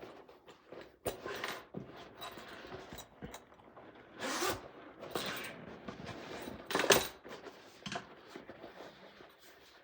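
Spiral rolltop backpack being handled and opened: rustling of its rubbery fabric and about six short rasping pulls, the loudest about seven seconds in.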